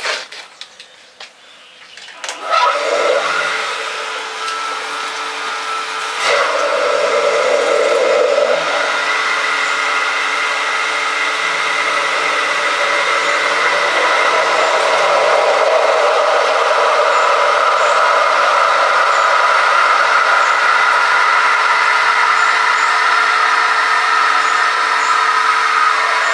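Electric well pump switching on about two seconds in and then running steadily, a hum and whine of fixed tones over a hiss; the sound steps up a few seconds after starting and then holds.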